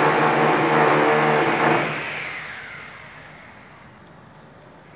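Loud electric motor-driven machine running steadily with a humming whine, then switched off about two seconds in and winding down over about a second.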